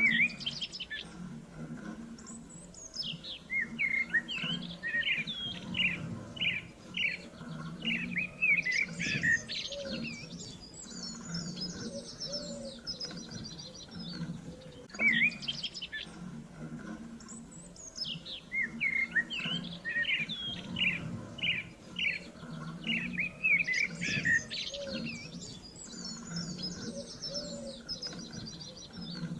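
Several songbirds chirping and trilling in quick, overlapping phrases. The same stretch of birdsong repeats about every fifteen seconds, as a looped recording does.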